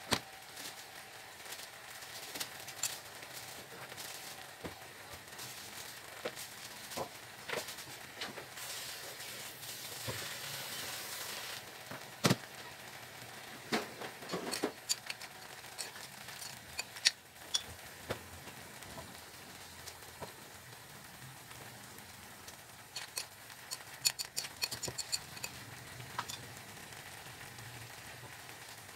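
Frog hot pot sizzling in a pot, the hiss growing louder for a few seconds about a third of the way in. Sharp clinks and taps of a utensil against the pot or dishes come now and then, with a quick run of them near the end.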